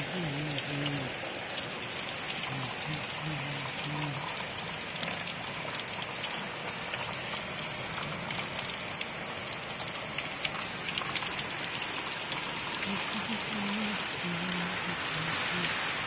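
Heavy rain falling steadily on trees, leaves and waterlogged ground: a constant hiss with scattered ticks of individual drops.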